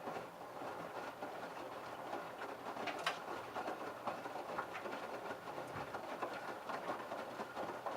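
LG F1222TD direct-drive washing machine drum starting to turn right at the start, tumbling wet laundry in the prewash, with a steady run of small knocks and patter from clothes and water falling in the drum.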